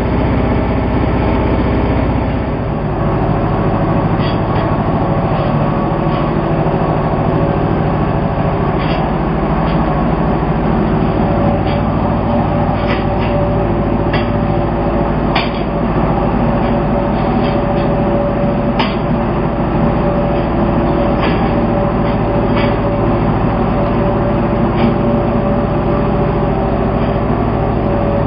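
TMR feed mixer wagon running with a steady mechanical hum from its engine and drive, with scattered sharp clicks and knocks as it unloads feed. The low hum changes about two seconds in.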